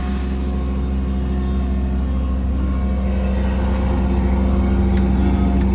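An engine running steadily with a deep hum, growing slightly louder over the last couple of seconds.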